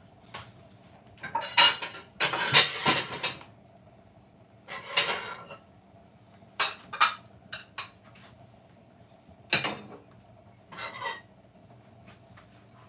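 Crockery and cutlery clinking and clattering in several short bursts, the busiest about two seconds in, with a faint steady hum underneath.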